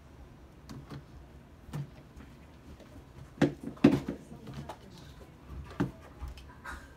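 A handful of separate sharp knocks and taps of small objects being handled at a tabletop, the loudest two close together about three and a half and four seconds in.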